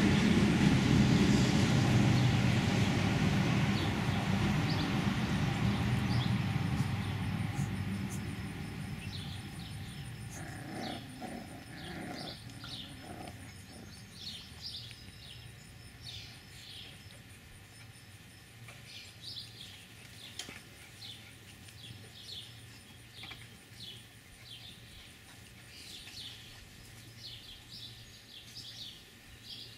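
A loud low rumble fades away over about the first ten seconds. After it, birds chirp in short high calls until the end.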